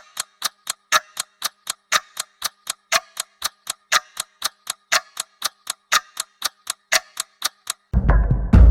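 Even, clock-like ticking, about three ticks a second. Near the end it is cut off by a loud, deep boom that rumbles and fades slowly.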